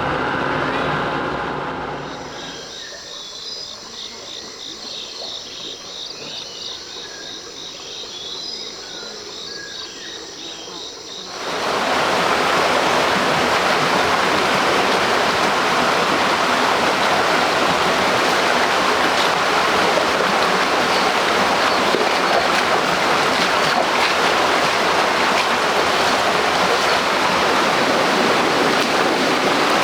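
Insects shrilling in steady high tones with a few bird chirps over a quiet background; about ten seconds in, the loud, even rush of a flowing stream cuts in and carries on.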